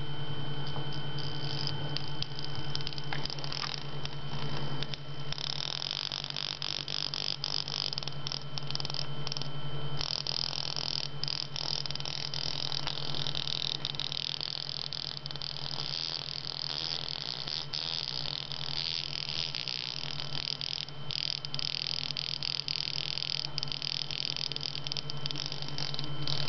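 Damaged airline earphone speaker giving out a harsh, crackling, buzzy noise over a steady low hum, the sound of a speaker that has been torn apart. The crackle grows harsher about five seconds in.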